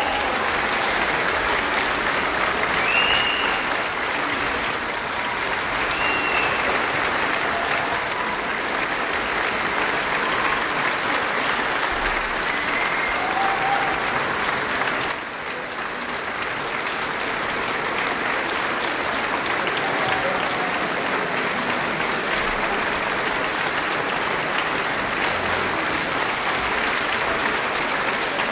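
Audience applauding steadily in a concert hall as the orchestra takes its bows, with a few short high calls over the clapping in the first half. The level dips briefly about halfway through.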